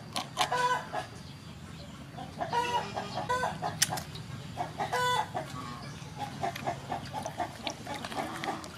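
Domestic chickens clucking in a string of short calls with runs of quick clucks between them, and a few brief splashes of water in an aluminium basin where a squid is being washed.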